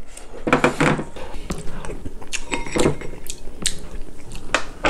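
Spoon clinking and scraping against a ceramic bowl as the last of the egg soup is scooped out, with several short irregular clicks and brief slurping mouth sounds as a spoonful is eaten.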